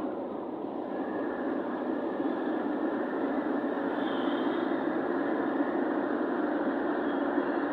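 Steady road noise of a vehicle under way: an even drone of tyres and engine with no clear engine note, dipping slightly at the start and building again about a second in.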